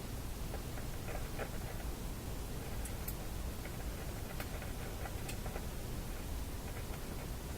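A few light clicks and ticks from hand work at an electronics bench, over a steady low hum and hiss.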